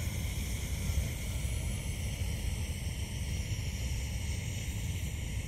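Primus canister gas stove burning under its pot as it heats water: a steady hiss with a low rumble, and some wind on the microphone.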